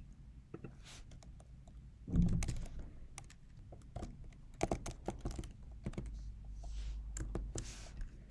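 Typing on a computer keyboard: scattered keystroke clicks, with a louder dull thump about two seconds in.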